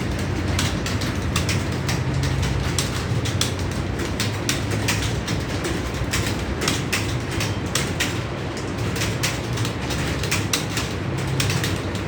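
Many computer keyboards clattering at once as a room of students types fast, a dense, irregular stream of keystrokes over a low steady hum.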